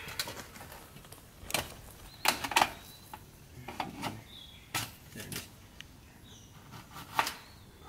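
Irregular sharp knocks and clanks, about half a dozen, as a Tomei Expreme titanium exhaust section is forced and knocked into its fitting under the car.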